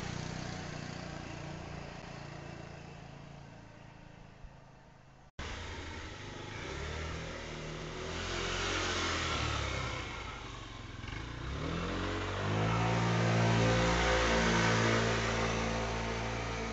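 A motor vehicle engine approaching and speeding up. Its pitch rises about twelve seconds in and it is loudest near the end. The sound cuts off briefly about five seconds in.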